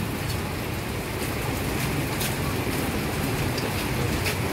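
Heavy rain pouring down in a steady hiss, with a few sharp drops ticking now and then.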